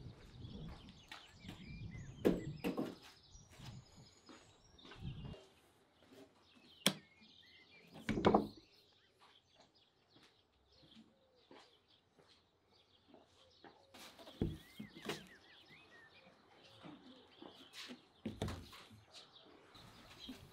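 Outdoor ambience of birds chirping, with scattered knocks and clatter. The loudest knocks come about 2, 7, 8, 14 and 18 seconds in.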